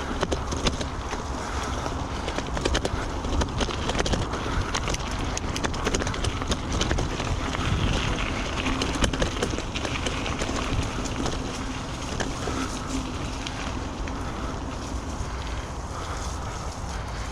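Carrera Vengeance mountain bike riding over rough ground, with a steady tyre rumble and frequent rattles and knocks from the bike, and wind buffeting the microphone.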